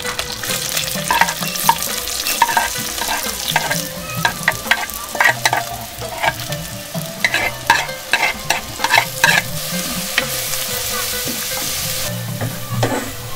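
Chopped onions and green chillies sizzling in hot oil in a pot, with a wooden spoon clicking and scraping against the pot as they are stirred. About ten seconds in, the clicks stop and the sizzle rises to a louder, steady hiss.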